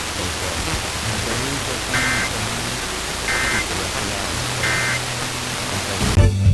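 Three short bursts of Emergency Alert System digital data tones, the end-of-message signal that closes the test, about a second and a half apart over a steady hiss. Near the end, loud music cuts in as regular programming resumes.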